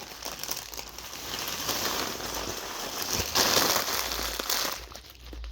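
Thin plastic crinkling and rustling as a cat plays in a cheap plastic toy bag, growing louder for a second or so past the three-second mark.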